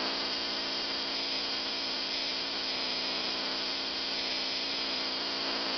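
Small homemade spark-gap Tesla coil running, giving a loud, steady electrical buzz as its makeshift spark gap fires.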